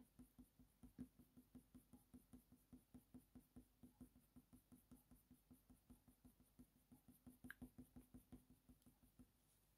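Faint, quick scratching of a Faber-Castell Polychromos coloured pencil making short, repeated strokes on hot press watercolour paper, a few strokes a second, over a faint steady hum.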